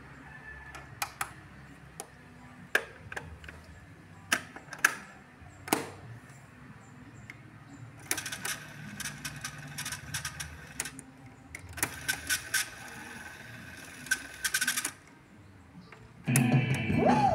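Akai GXC-41D cassette deck's transport keys clunking down several times, then the tape whirring and rattling as it fast-winds in two spells of a few seconds each. Near the end, music starts playing from the cassette.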